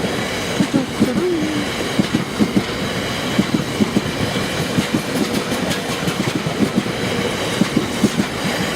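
Long freight train of oil tank wagons rolling steadily past over the level crossing, wheels knocking irregularly over the rail joints.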